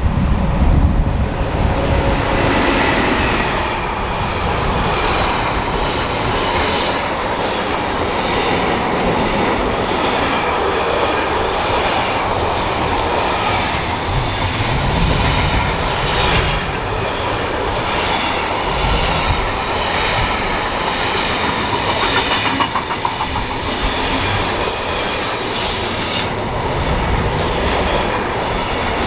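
A train running past on a mainline: a steady loud rolling rush of wheels on rail, with a clatter roughly every ten seconds and a faint high whine at times.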